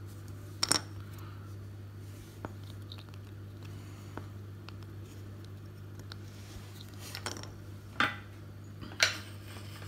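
A few sharp clicks and taps of a small plastic connector saver and metal parts being handled and set down on a cutting mat, the loudest two near the end about a second apart, over a steady low hum.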